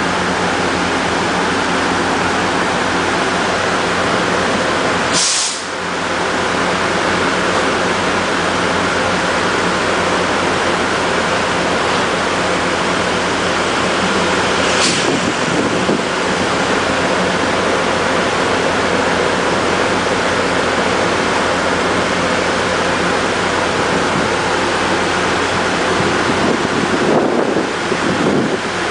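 MARC EMD GP40WH-2 diesel locomotive standing at the platform with its engine running, a steady loud drone. Two short hisses come about five and fifteen seconds in.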